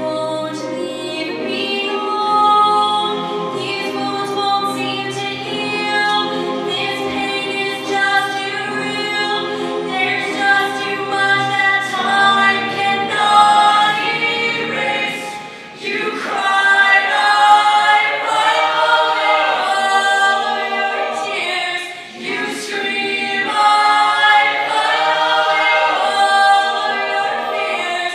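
Show choir singing: a female soloist on a handheld microphone leads, with the choir's voices behind her. The singing drops off briefly twice, around the middle and again some seconds later.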